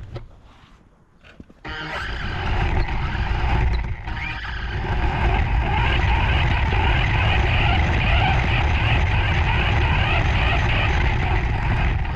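Remote-control car's motor running with a steady engine-like rumble that starts suddenly about two seconds in and holds at a constant level.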